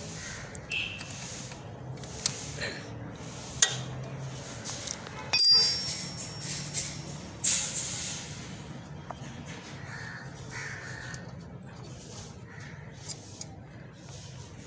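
A spanner and metal parts on a car's front disc brake as the 12 mm caliper bolts are undone: scattered metal clicks and clinks, with one loud metallic clank about five and a half seconds in that rings briefly.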